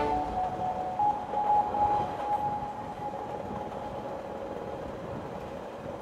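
Electric suburban train running, heard from its open doorway: a steady rumbling noise with a high steady whine that is strongest in the first few seconds.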